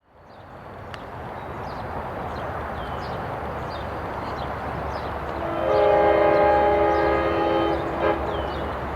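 Long Island Rail Road DM30AC diesel locomotive approaching with a steady rumble, then sounding its five-chime Nathan K5LA horn for about three seconds, a chord whose notes come in unevenly. The horn sounds weak and wheezy, a dismal excuse for a K5L.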